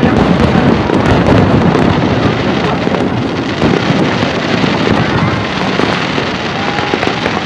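Fireworks display: aerial shells bursting in a dense, continuous run of bangs and crackles, easing off slightly in the last couple of seconds.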